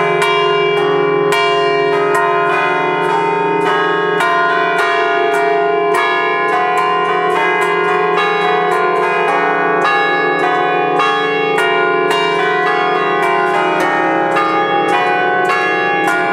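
Five bronze church bells in D-flat, cast by the Ottolina brothers of Seregno in 1932, struck in quick succession from a wooden baton keyboard to play a festive bell concert. There are several strikes a second, and each note rings on under the next.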